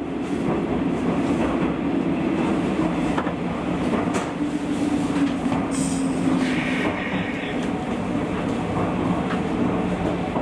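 JR 201 series electric commuter train running, heard from the driver's cab: steady rumbling running noise under a motor hum that slowly drops in pitch, with occasional clicks from the wheels over the rails.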